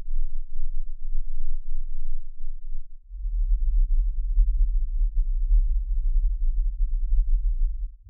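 Pink noise band-pass filtered to 10–22 Hz, a very deep low noise with nothing above it. About three seconds in it switches to the 22–47 Hz band, which is louder and a little higher.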